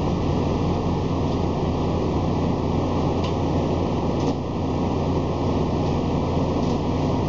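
Steady mechanical hum and fan-like rush from a MARC bilevel commuter coach standing at the platform, its on-board equipment running while stopped. A couple of faint clicks come about three and four seconds in.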